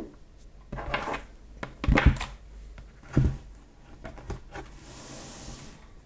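Handling noises as a mechanical keyboard and a tablet in a case are plugged in, moved and set down on a wooden desk. There are several light knocks and thuds about a second apart, with small clicks between them, then a brief rubbing hiss near the end.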